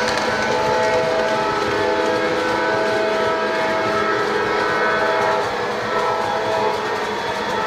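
Model trains running on an O-gauge three-rail layout: a steady hum of several pitched tones over a running noise, shifting in pitch a few times.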